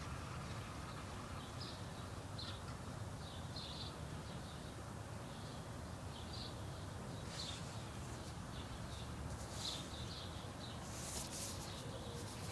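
Faint, short bird chirps at irregular intervals over a steady low outdoor rumble.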